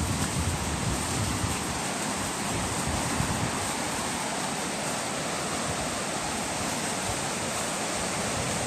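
Strong typhoon wind, a steady rushing noise with gusts buffeting the microphone in uneven low rumbles.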